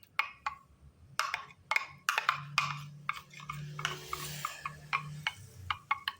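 Glue and purple paint being stirred in a container: irregular clicks and taps of the stirrer knocking against the sides.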